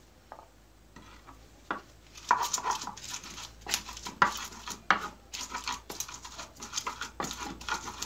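Pestle of an ulekan (Indonesian mortar and pestle) pounding and grinding dried chilies: a run of irregular knocks and scrapes that starts about two seconds in.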